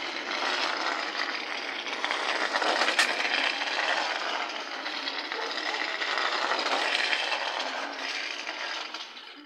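Small toy model car rolling over brick pavers, a steady rattling clatter that swells and eases, with one sharp click about three seconds in.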